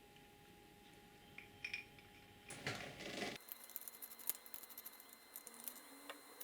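Quiet workshop room tone, then a brief scrape about two and a half seconds in, followed by a run of light, irregular clicks and ticks, as of small hard parts being handled.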